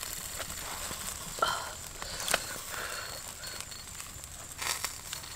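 A few light, separate knocks and rustles of grilled fish being handled and set down in a wicker basket.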